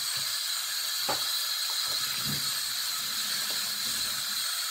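A steady hiss, with a few faint light knocks about one and two seconds in.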